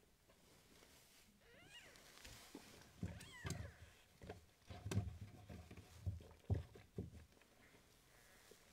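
Newborn kitten mewing with thin, high cries, twice in the first half. Soft knocks and bumps follow, the loudest sounds, as the cloth-wrapped hot water bottle and kittens are handled on the padded wooden shelf.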